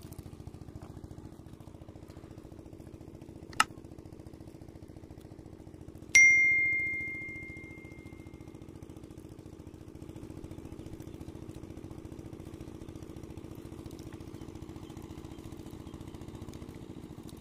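A single click, then about two and a half seconds later a loud bell ding that rings and fades over about two seconds: the sound effect of an on-screen subscribe-button animation. A steady low engine hum runs underneath.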